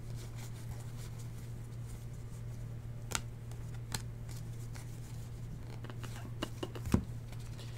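Baseball trading cards being flipped and slid through by hand, with a few light clicks and taps, over a steady low hum.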